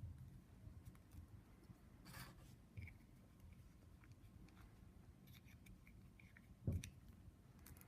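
Faint handling sounds of a rubber sleeve being worked over a barb connector: light clicks and a brief rubbing scrape, with one dull thump near the end.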